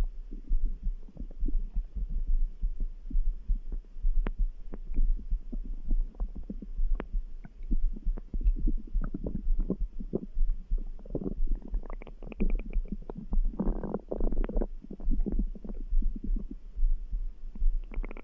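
Stomach gurgling and rumbling in irregular bursts over a steady, low background heartbeat, with a longer, louder gurgle about fourteen seconds in.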